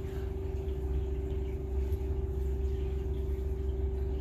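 Steady background hum of a machine or appliance: one held tone over a low rumble, unchanging.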